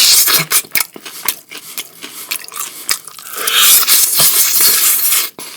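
Loud close-up slurping and chewing on dry rub chicken wings: a long airy slurp at the start, wet smacking and clicking chews, then another long slurp from about three seconds in.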